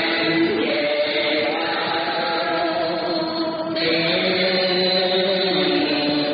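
Music from a cải lương (Vietnamese reformed opera) recording near its close: slow, long held notes that move to a new pitch every second or two.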